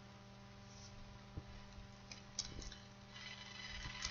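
Faint steady electrical hum in a quiet room, with a few soft clicks about a second and a half in, around two and a half seconds and near the end.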